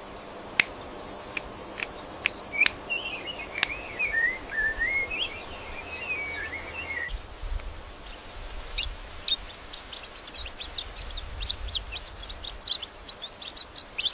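Birds calling: a wavering, warbled call lasting a few seconds, then a fast run of short, high chirps through the second half, with a few sharp clicks in the first seconds.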